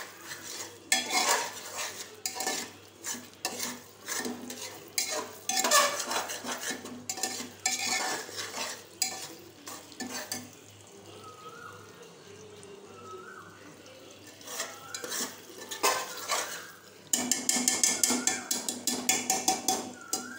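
A spoon stirring and scraping thick curry masala against the inside of an aluminium pressure cooker, in irregular strokes. It pauses midway, then comes back as a quick, rapid run of scraping strokes near the end.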